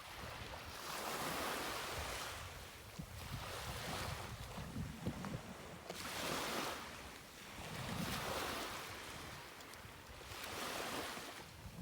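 Small sea waves washing up on a beach, each one swelling and fading, one every two to three seconds.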